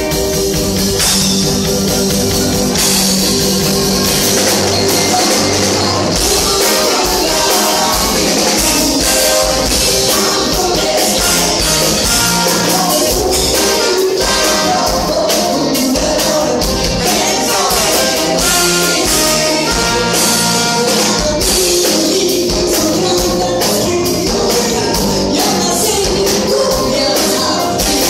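Live rock band playing a song: drums, electric guitars, keyboard and saxophone, with singers on microphones.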